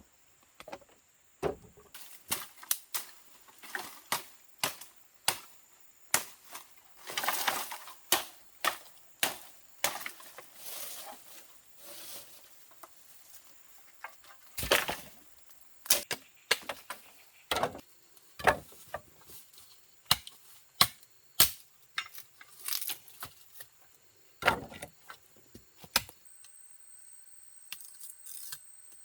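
Irregular sharp knocks and clicks, roughly one or two a second, with brief scraping rustles about seven and eleven seconds in, then stopping near the end.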